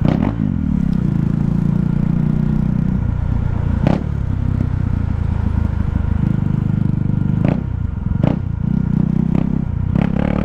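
KTM Duke 390's single-cylinder engine running through an open, muffler-less exhaust while riding, its pitch shifting a little with the throttle. A few short sharp cracks cut through, about four seconds in and twice around eight seconds.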